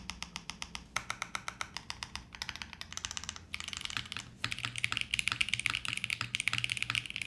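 Typing on a HIBI June 60% mechanical keyboard: silicone tray-mounted case, FR4 plate, lubed CK x Haimu Pastel Peach switches and CYL Sloth keycaps. A rapid, continuous run of keystroke clacks, which pauses briefly about four seconds in and then comes faster and denser.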